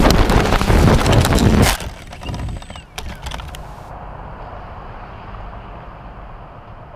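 Loud wind buffeting and clattering on the GoPro's microphone as a DJI Phantom 2 quadcopter tumbles onto the road. The noise cuts off suddenly about two seconds in, a few light knocks follow as it comes to rest, then only a faint hiss that fades.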